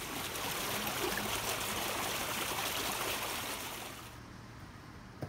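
Water of a small stream running and trickling over rocks, a steady hiss that stops about four seconds in.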